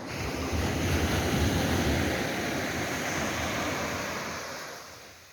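Sea surf washing onto the shore: a rush of a wave that swells within the first second and slowly dies away near the end.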